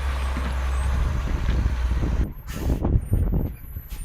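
M939 5-ton 6x6 military truck's diesel engine running under load as a steady low drone. About two seconds in the sound changes abruptly to an uneven low rumble with a couple of short knocks.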